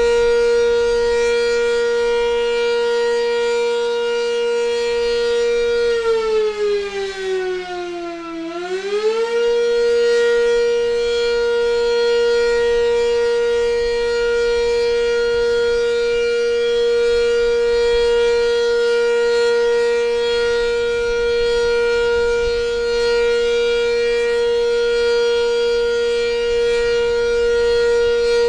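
Sentry 10V outdoor warning siren sounding its steady alert tone. About six seconds in, the pitch sags for a couple of seconds, then climbs back to full pitch and holds steady.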